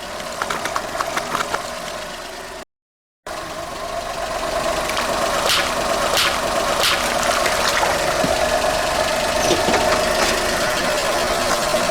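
Car engine running at low speed as the car rolls forward, with a few sharp crackles from the tyres. The sound breaks off for a moment about three seconds in.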